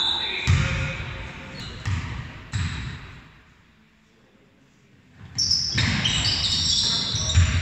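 A basketball bouncing a few times on a wooden gym floor in a large, echoing hall, then a hushed lull. Voices and court noise come back loudly about two thirds of the way through.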